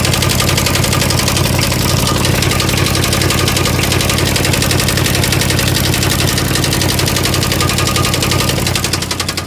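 1989 Chevy Caprice Classic engine idling with a fast, steady, regular knock running through it, a knock the owner hears every time it is started and cannot yet place. The sound eases slightly near the end.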